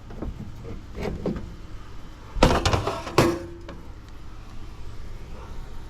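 Dirty stainless steel scrap from a coffee maker clanking as it is handled and set on a scale: a couple of light knocks, then a cluster of loud metal clanks about two and a half seconds in, the last leaving a short ring.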